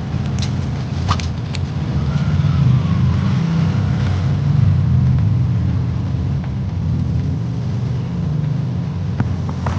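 Car engine and road rumble heard from inside the cabin as the car drives slowly along a narrow street; a few short clicks about a second in and again near the end.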